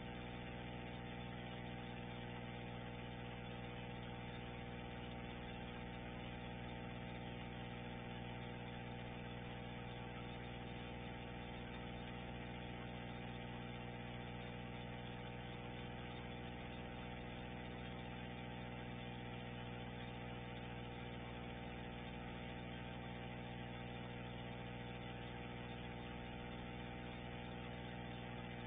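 Steady electrical hum with a stack of overtones, unchanging throughout, with a faint hiss above it; no sound of the eruption itself is heard.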